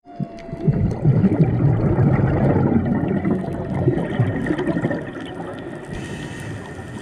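Scuba diver's exhaled regulator bubbles gurgling and burbling past the camera housing, easing off after about five seconds. Faint humpback whale song underneath, with a thin drawn-out tone near the start.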